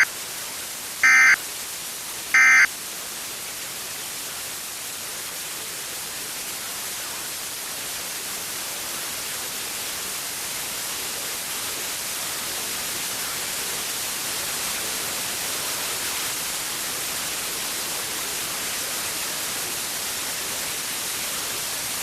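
Emergency Alert System end-of-message data bursts: short, loud, buzzy digital chirps about a second and a half apart in the first few seconds, marking the end of the alert. Then a steady static hiss with no other sound.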